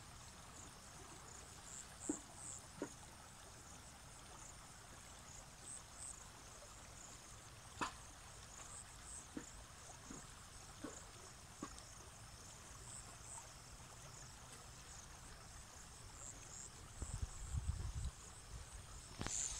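Faint, high-pitched insect chirping repeats steadily over the flooded paddy fields. A few soft clicks are scattered through it, and a brief low rumble comes near the end.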